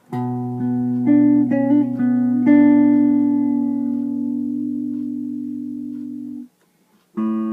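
Carvin SH445 electric guitar on the middle pickup position, both humbuckers together, played clean. A chord is struck and a few notes change over the first couple of seconds, then one chord rings on with long sustain, fading slowly until it is muted. A new chord is struck near the end.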